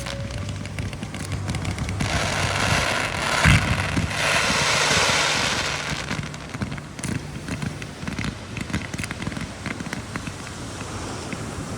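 Fireworks going off: rushing hiss swelling up, a single sharp bang about three and a half seconds in, then a run of rapid crackling through the second half.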